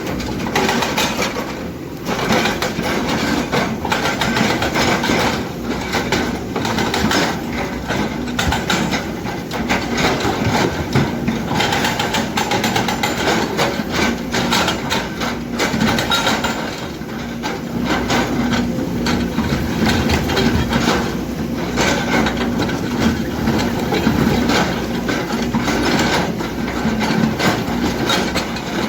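Kobelco hydraulic excavator working in rock, its diesel engine running steadily under dense, irregular knocking and clattering of steel on stone, with brief lulls.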